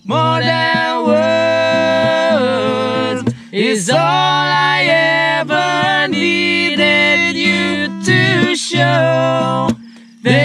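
Two men singing together to a strummed acoustic guitar.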